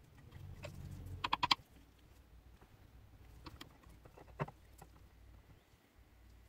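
Light clicks and taps from handling a small workpiece at the bench: a quick run of four or five clicks about a second in, then a couple of single clicks near the middle.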